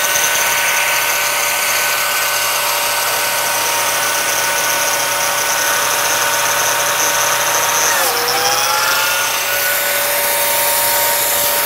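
Lamello biscuit joiner running steadily with a motor whine while cutting biscuit slots in pine. About eight seconds in, the whine dips in pitch and then recovers.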